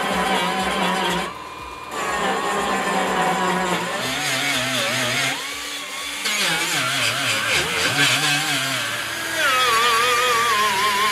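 Pneumatic right-angle die grinder with a small sanding disc grinding MIG weld seams flush on the steel sheet-metal trunk floor, its whine rising and falling as it is pressed into the metal and eased off.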